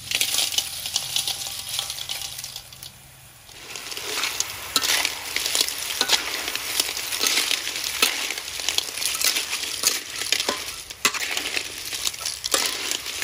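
Clams tumble from a basket into a hot steel wok and sizzle, then from about three and a half seconds in they are stir-fried with a metal spatula, shells clattering and scraping against the wok.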